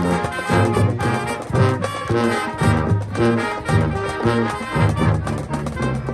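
High school marching band playing: brass (trombones and trumpets) over a steady percussion beat.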